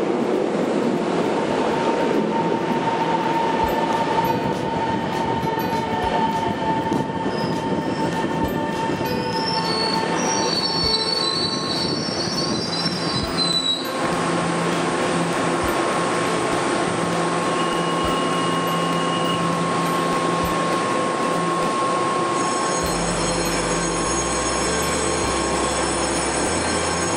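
Taiwan Railways EMU700 electric multiple unit rolling into a station platform and braking, with high-pitched brake and wheel squeal in the middle that cuts off as it comes to a stop about halfway through. The stopped train then hums steadily.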